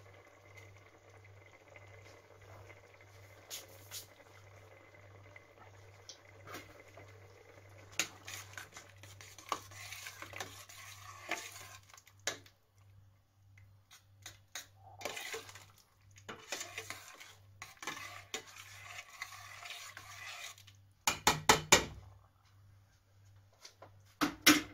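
A metal spoon stirring soup in a steel pot, scraping and swishing against the pot in broken strokes for about twelve seconds, after a stretch of faint simmering. Then a quick run of about five loud, sharp knocks of the spoon against the pot, and two more near the end.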